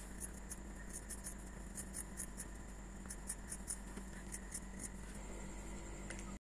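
Scissors snipping through cotton T-shirt fabric, cutting off the thick folded hem: a faint, quick run of short snips, about three a second.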